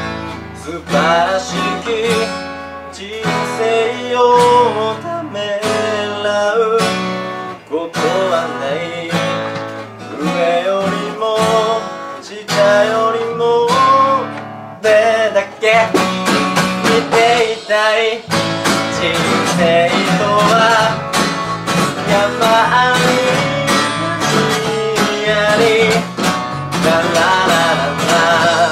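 A small band playing a song together: electric bass, strummed acoustic guitar and a drum kit played through an amplifier keep a steady rhythm, with a wavering melody line over them.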